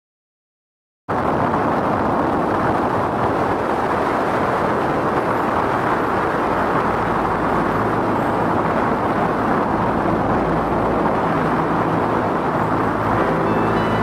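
Steady road and tyre noise of a car being driven, cutting in abruptly about a second in. Faint music tones creep in under it in the second half.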